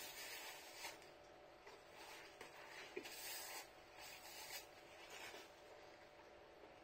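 Faint rustle and rub of a paper napkin wiped across the mouth, in a few soft brushes.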